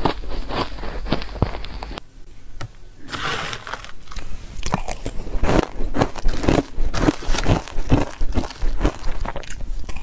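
Crunchy bites and chewing of soft powder-coated shaved ice, close to the microphone: irregular crisp crunches, with a short lull about two seconds in, then rapid, closely packed crunching as a spoon scoops the matcha-dusted ice from a plastic box.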